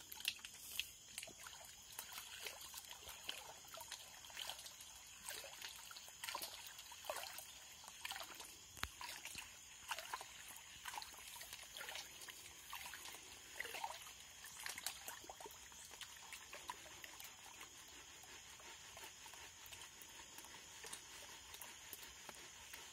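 Faint, irregular water sloshing and trickling as a black riffled gold pan is swirled and dipped in shallow muddy water, washing the lighter gravel out of the pan while the heavy black iron sand stays at the bottom.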